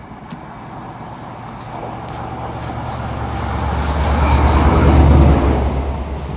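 A High Speed Train's Class 43 diesel power car approaching and passing close by. A low engine drone and the rumble of the train build up to a peak about five seconds in.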